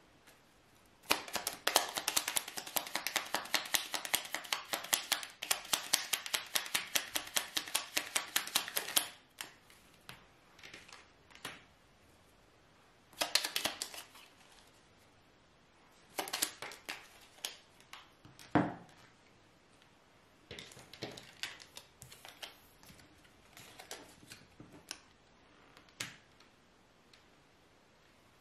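A deck of fortune-telling cards being shuffled by hand, a fast run of crisp card clicks lasting about eight seconds, followed by scattered short shuffles and card snaps.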